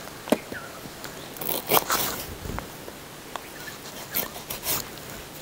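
A large broad-bladed knife slicing the spiky green skin off a tender jackfruit: a few short rasping cuts, with sharp clicks in between.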